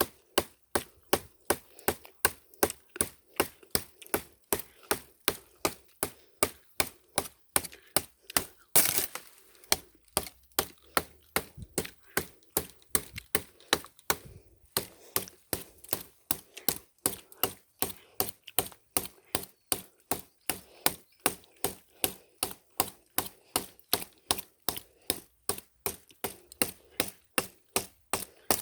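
A knife hacking over and over at the woody stalk of a licuri palm fruit bunch, about two to three even strikes a second. A brief burst of noise comes about nine seconds in.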